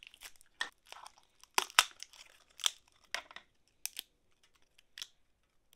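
Clear tape crinkling and tearing as a taped wooden mould is pulled apart from a cured epoxy resin casting. A string of separate sharp crackles and snaps, the loudest about a second and a half to two seconds in.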